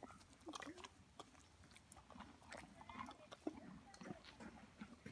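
Horse chewing a mouthful of hay up close: faint, irregular crunching.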